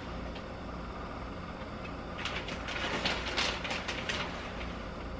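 Plastic bag of shredded cheese crinkling as it is shaken out over a pan, a run of short rustles from about two seconds in, over a steady low hum.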